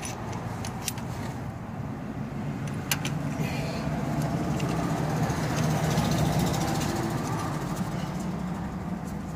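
A vehicle engine runs steadily with a low hum, swelling a little past the middle and then easing off. A few sharp metallic clicks come from the sway bar end link's bolt and bushings as gloved hands fit them.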